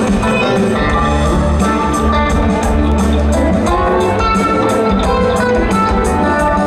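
Live jam-band rock music: interlocking electric guitar lines over bass guitar and drums with steady cymbal strokes, in an instrumental passage.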